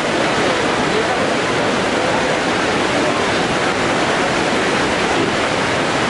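Kegon Falls, a tall waterfall plunging into its gorge, heard as a steady, unbroken rush of falling water.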